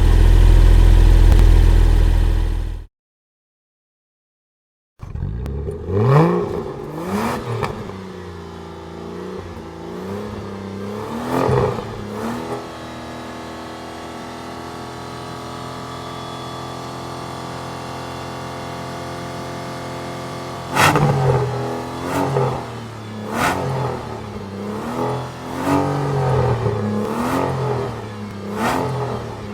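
Sports car engine: a loud, deep run cuts off after about three seconds. After two seconds of silence another sports car engine comes in with throttle revs rising and falling, settles to a steady idle, then is blipped repeatedly in quick revs near the end.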